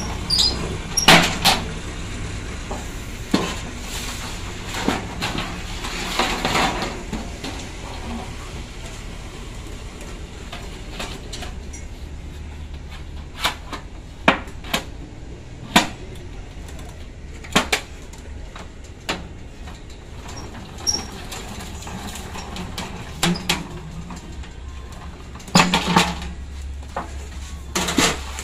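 Thin metal sheet being rolled into a cylinder on a manual slip-roll machine for insulation jacketing: sheet metal rattling and flexing, with scattered sharp metallic clanks and knocks, over a low steady hum.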